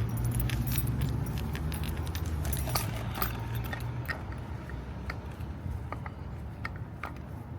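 Big raindrops tapping irregularly on a car, a few sharp taps a second, over a low steady hum.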